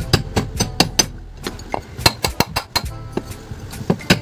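Sharp metallic clinks and taps, irregular, about three or four a second, each ringing briefly: metal-on-metal knocking while a ball bearing is fitted into an old ceiling fan motor.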